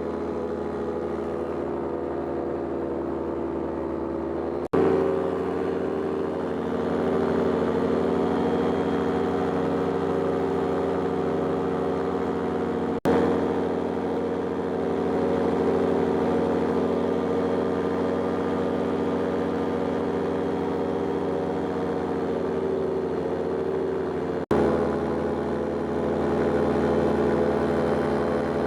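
Paramotor engine and propeller running steadily in flight, a constant drone with a haze of airflow noise. The sound breaks off abruptly three times and picks up again at a slightly different loudness.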